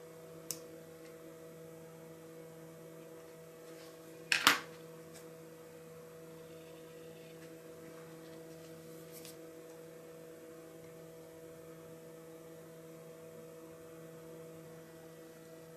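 Steady electrical hum made of a few evenly spaced tones, with one sharp click about four and a half seconds in and a faint tick near the start.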